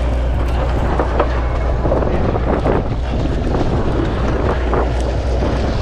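Steady low drone of a sportfishing boat's engine, with wind buffeting the microphone.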